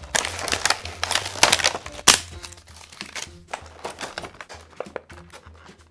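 A clear plastic blister pack and its cardboard box being torn apart and crumpled by hand: irregular crackling and crinkling, heaviest in the first two seconds and thinning out toward the end.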